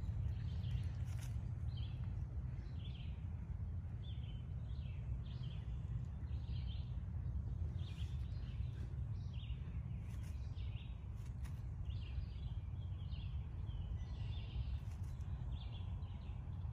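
Short bird chirps repeating about once or twice a second, over a steady low rumble.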